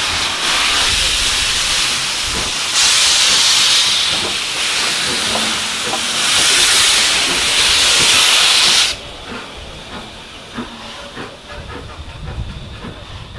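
Steam hissing loudly from LMS Princess Coronation Class Pacific 6233 'Duchess of Sutherland', swelling twice, then cutting off suddenly about nine seconds in, leaving a few small clicks.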